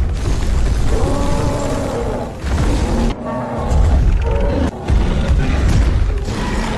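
Dinosaur fight soundtrack from a CGI clip: dramatic music over deep booms, with creature growls. The sound breaks off abruptly twice partway through.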